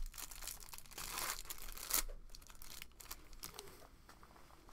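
Wrapper of a Panini Absolute football card pack being torn open and crinkled, with a sharp snap about two seconds in, then quieter rustling and a few light clicks as the cards are handled.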